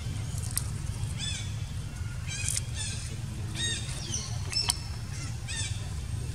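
Short, high-pitched chirping calls, repeated about once a second, over a steady low hum.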